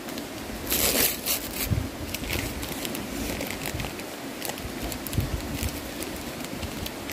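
Plastic film wrapper of a convenience-store rice ball crinkling and tearing as it is opened by hand: a loud burst of crinkling about a second in, then scattered lighter crackles.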